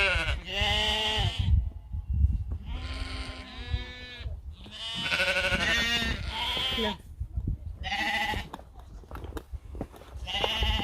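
Sheep bleating, about half a dozen long calls one after another, over a low rumble.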